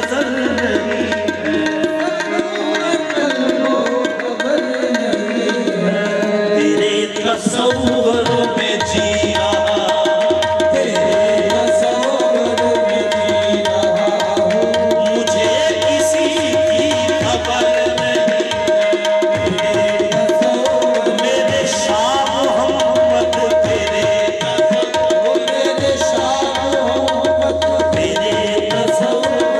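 Live qawwali music with tabla drumming and harmonium, a long steady harmonium note held from about seven seconds in.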